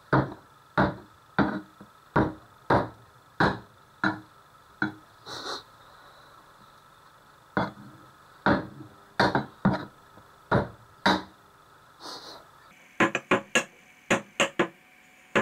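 Heavy cleaver smashing and chopping raw peeled shrimp on a wooden cutting board, pounding them into a paste. It makes a run of sharp knocks, about one every two-thirds of a second, with a short pause about halfway and a quicker flurry near the end.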